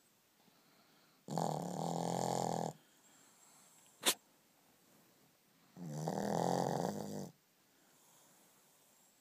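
Shih Tzu snoring in its sleep: two drawn-out snores, each about a second and a half long and a few seconds apart. A brief sharp click falls between them.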